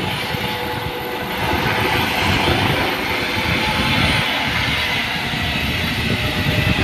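Helicopter lifting off and flying away: a steady engine and rotor noise at an even level, with an uneven low rumble underneath.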